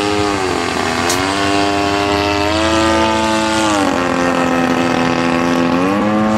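A small, high-revving engine runs loudly with a clear pitched note. Its pitch steps down shortly after the start, climbs twice around one and two and a half seconds in, drops near four seconds, and rises again near the end, as the throttle is moved between settings.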